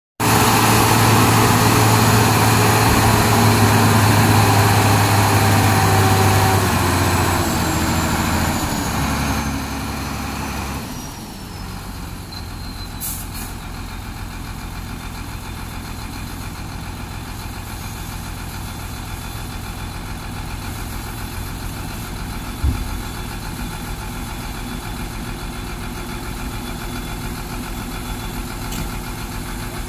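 Sinotruk HOWO 371 dump truck's diesel engine held at raised revs while the hydraulic hoist tips the dump body up, its pitch stepping down. About eleven seconds in it drops to a steady, quieter idle as the body lowers, with a single knock about two-thirds of the way through.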